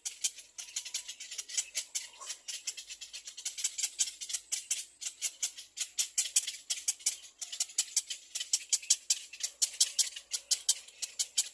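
Nestling birds calling in a fast, unbroken series of short, high chirps, about six to eight a second.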